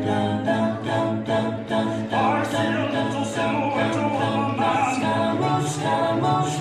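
Recorded a cappella vocal group singing sustained notes in layered harmony over a sung bass line, with no instruments.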